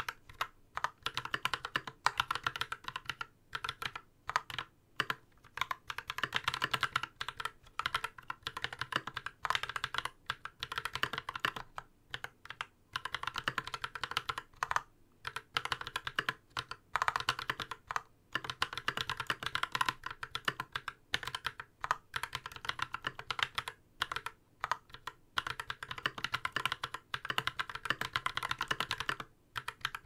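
Fast, continuous typing on a Massdrop Ctrl High-Profile mechanical keyboard with Holy Panda tactile switches lubed with Krytox 205g0 and GMK doubleshot ABS keycaps. The board sits directly on a hard desk with no desk mat. Dense run of keystrokes with a few brief pauses.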